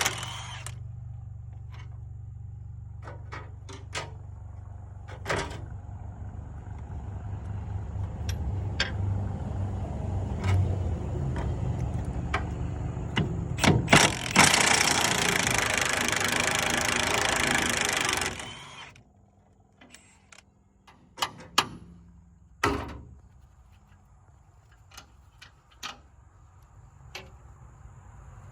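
Heavy diesel machine idling with scattered clicks and knocks, a few seconds of loud hissing noise about two-thirds through, then the engine shuts off. After it stops come a few sharp knocks and clicks.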